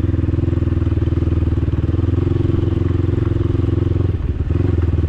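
Dirt bike engine running steadily under the rider, with a fast, even pulse. About four seconds in the engine sound drops briefly as the throttle eases off, then picks up again.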